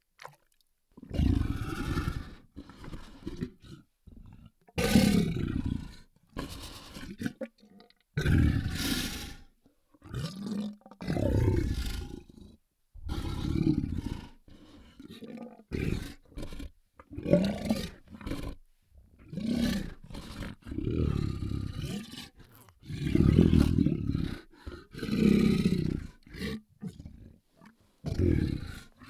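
Large monster choking sound effect: a run of deep, gagging roar-like vocal bursts, each a second or two long, with brief silences between them.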